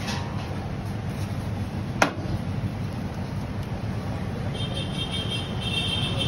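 Steady low rumble of street traffic noise, with a single sharp tap about two seconds in and a high, wavering tone coming in near the end.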